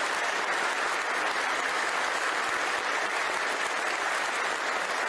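A large seated audience of parliament members applauding steadily.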